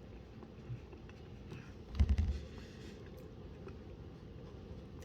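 Faint handling and eating noises: a few soft clicks and one brief low thump about two seconds in.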